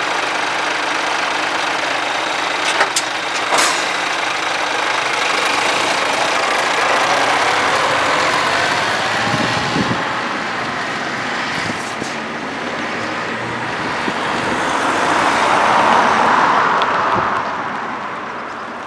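Diesel semi-truck tractor unit pulling away and driving over a railway level crossing, its engine note rising as it accelerates, with two sharp clicks about three seconds in. Near the end a car passes close by, its tyre and engine noise swelling and fading.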